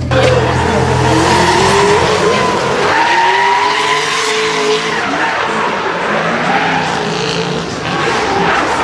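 Drift car sliding through a corner, its engine revs rising and falling over tyres squealing and skidding on the tarmac.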